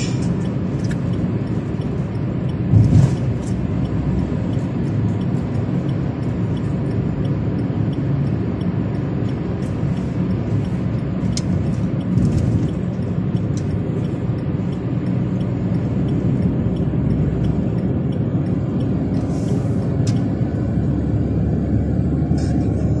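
Car driving at road speed, its steady engine and tyre noise heard from inside the cabin, with a brief thump about three seconds in.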